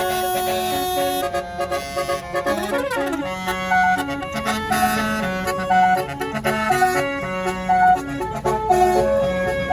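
A bus's basuri telolet horn, a multi-tone air horn, playing a melody in sustained reedy notes that step from pitch to pitch, with a brief sliding up-and-down glide about three seconds in.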